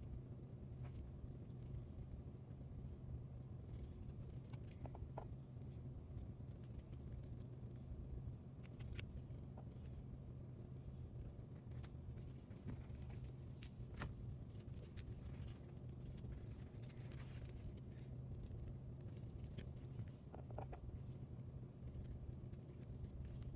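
Faint, irregular clicks and scratches of small repair tools and parts handled on an iPhone 7 Plus during a screen replacement, over a steady low hum.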